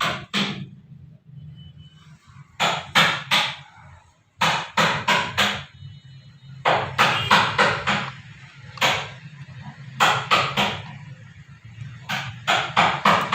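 Keys being pressed on an HP 350 compact Bluetooth keyboard: sharp clicks in short bursts of three to five, with pauses between the bursts, over a steady low hum.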